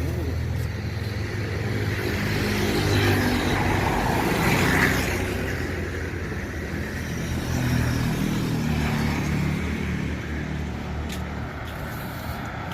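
Road traffic: motor vehicle engines running and passing close by, swelling louder about three to five seconds in and again around eight seconds.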